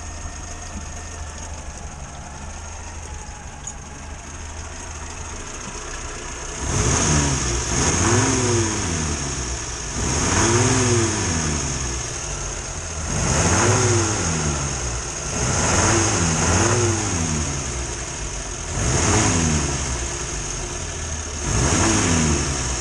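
A 1962 Morris Minor's four-cylinder BMC A-series engine idles, then is revved by hand at the carburettor about six times, each rev rising and falling back to idle. It runs rough and misfires under acceleration, which the owner puts down to a failing ignition coil.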